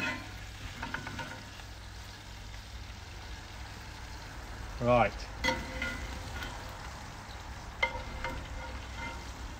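Squid pieces deep-frying in hot oil in a skillet, a steady sizzle. A spoon clinks lightly against the pan a few times as the pieces are lifted out.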